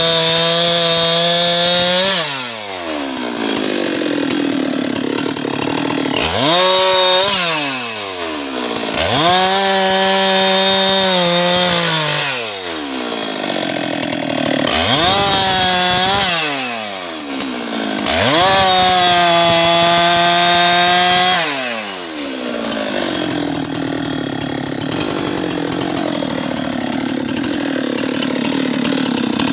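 Husqvarna 390XP two-stroke chainsaw cutting wood, its engine revving up to a high steady pitch and dropping back about five times, then running lower and rougher for the last several seconds.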